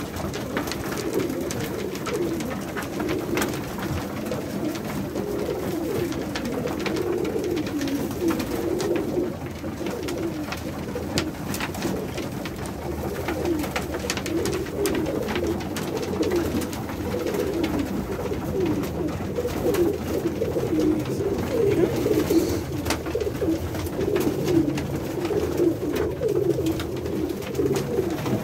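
A loft full of domestic pigeons (Pakistani high flyers) cooing together, a dense, continuous overlapping chorus of low coos, with scattered sharp clicks throughout.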